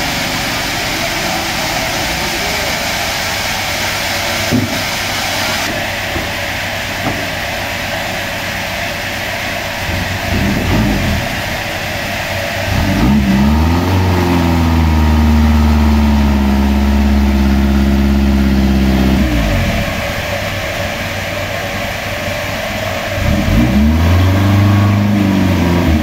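Old pickup truck's engine revving: a short rev, then a longer one that rises and is held for several seconds, and another rev near the end.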